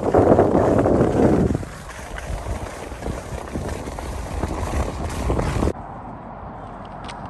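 Skis sliding and scraping over groomed snow with wind buffeting the microphone. It is loudest in a hard scraping stretch over the first second and a half. The sound cuts off suddenly about six seconds in, leaving a much quieter steady hiss.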